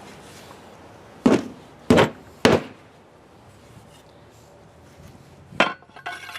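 Three sharp wooden knocks about half a second apart, then another knock and some lighter clatter near the end: the adze head being driven down onto its new wooden handle to test the fit.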